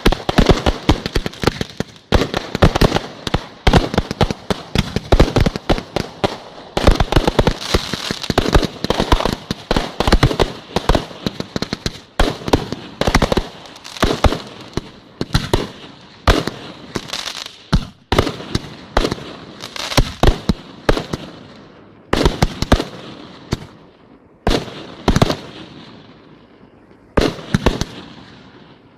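Aerial fireworks display: shells bursting in rapid, overlapping bangs with crackling, thinning to separate booms near the end.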